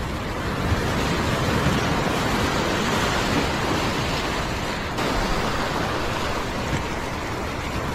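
Sea surf washing in over the rocks and foaming around them, a steady rush of water.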